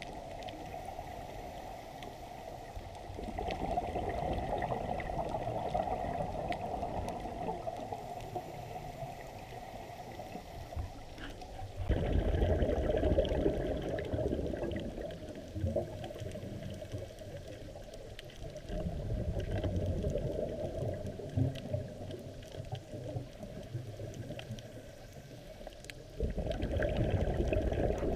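Scuba diver's breathing heard underwater through a camera housing: muffled rushes of exhaled bubbles from the regulator, swelling and fading every several seconds, with sudden loud bursts near the middle and near the end.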